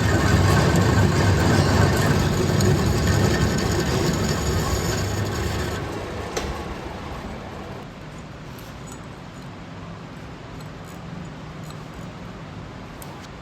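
Metal lathe running, a loud steady mechanical noise that winds down over about two seconds near the middle, leaving a low steady hum with a few light clicks.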